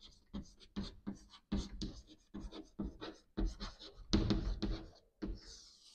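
Chalk writing on a blackboard: a run of short taps and scratches as a word is written stroke by stroke, a little louder about four seconds in.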